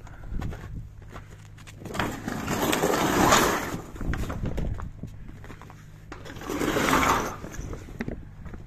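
Heavy canvas tarp of a curtain-sided semi-trailer being slid along the trailer's side frame, scraping and rustling in two pushes, about two seconds in and again near seven seconds. A low steady hum runs underneath.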